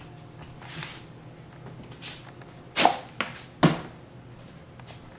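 Handling noise from a handheld camera being moved around: a couple of soft rustles, then two short, sharp knocks less than a second apart in the middle.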